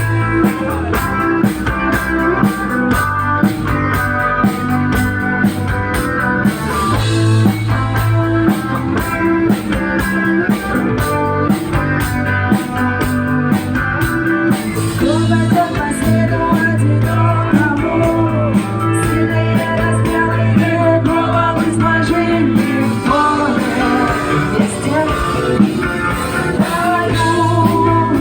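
Live band music with a singer, electric guitar and drums keeping a steady beat, played loud over a sound system.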